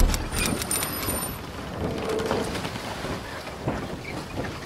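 Steady noisy hiss with scattered faint clicks, and faint high steady tones for about the first second and a half.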